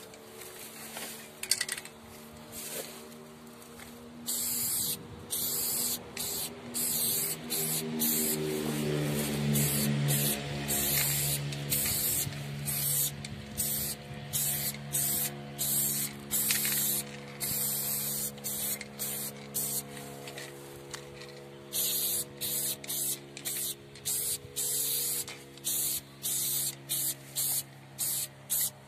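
Aerosol spray-paint can hissing as lines are sprayed: short bursts at first, longer steady strokes through the middle, then a quick run of short bursts near the end.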